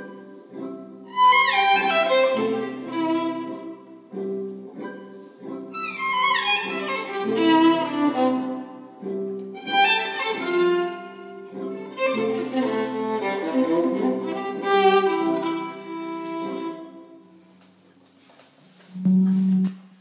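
Solo violin interlude: bowed phrases over a sustained low double-stop drone, with several quick falling runs. It dies away shortly before the end.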